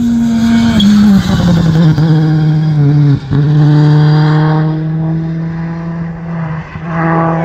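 Rally car engine running at high revs, its pitch stepping down over the first two seconds, a brief break about three seconds in, then held steady.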